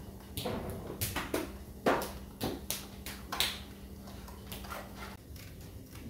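Scissors cutting a round sanding disc out of a sheet of sandpaper: a series of crisp rasping snips and crackles of the stiff paper, about eight over the first five seconds.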